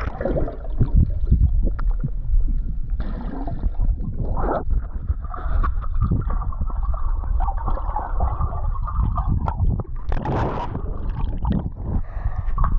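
Swimming-pool water sloshing and splashing as someone swims, under a steady low rumble on the microphone, with a louder splash about ten seconds in.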